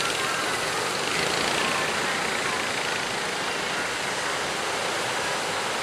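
Steady rushing of sea surf and choppy waves, an even hiss-like wash with no distinct breaks.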